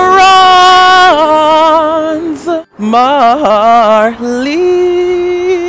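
A man singing in a high voice: a long held note that steps down about a second in and wavers, then, after a brief break, a second phrase that wobbles upward and settles into a long steady held note.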